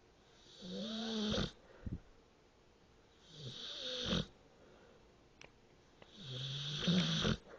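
A pet snoring while awake: three snoring breaths, each about a second long, roughly three seconds apart.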